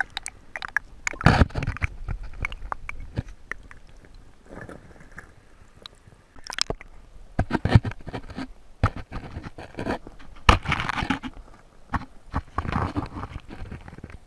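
Muffled sound from a camera held underwater in a stream: irregular scrapes, clicks and knocks against the stones, with several louder rushes of moving water lasting about a second each.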